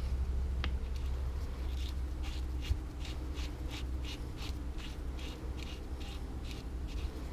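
Short scratching strokes by hand, two or three a second, over a steady low hum.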